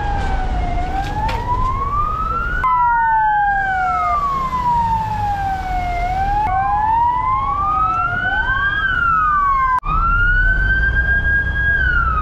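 Emergency vehicle sirens wailing in slow rising and falling sweeps, two or three sounding at once at times, over a low engine rumble. The sound breaks off sharply and picks up again a few times.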